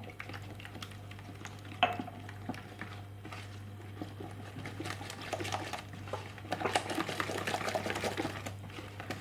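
A batter of eggs, sugar and melted butter being whisked in a mixing bowl: a run of quick clicks and scrapes of the whisk against the bowl, with one sharper knock about two seconds in and busier mixing over the last few seconds. A steady low hum runs underneath.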